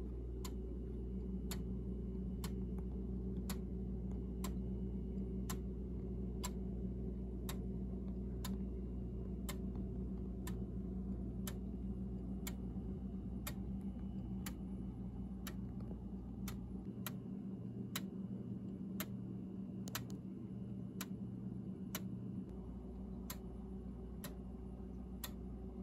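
A 3D-printed plastic 8-day clock ticking steadily, its escapement giving about three sharp ticks every two seconds, over a faint low hum.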